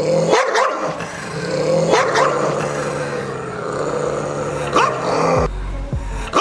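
A dog barking, about six sharp barks, some in quick pairs, over a steady background music track.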